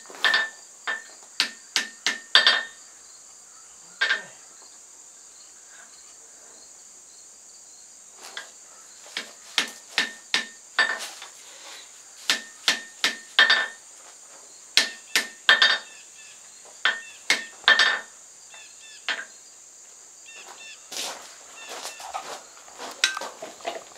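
Blacksmith's hand hammer striking hot steel on an anvil, tapering the forge-welded eye of a froe. The blows are sharp and ringing, falling in several quick bursts with pauses between, and give way to lighter, scattered clinks near the end.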